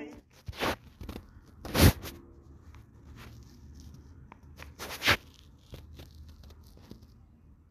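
Sporadic sharp clicks and light rustling, with the loudest click about two seconds in and another about five seconds in.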